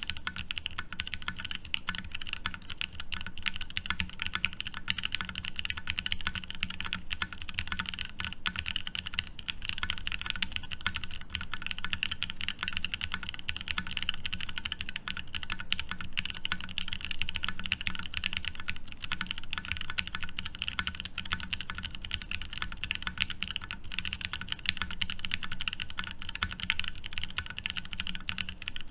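Continuous fast typing on a Savage65 mechanical keyboard with lubed Okomochi switches on an FR4 plate and GMK Tofu keycaps, a steady stream of rapid keystrokes.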